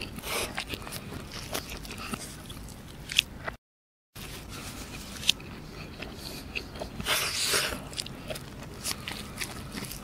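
Close-miked mouth chewing a piece of egg roti canai, with many small clicks and a louder noisy stretch about seven seconds in. The sound cuts out completely for about half a second a few seconds in.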